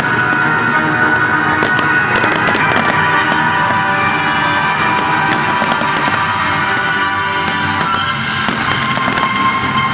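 Fireworks crackling and popping in rapid, dense succession over loud music with long sustained tones.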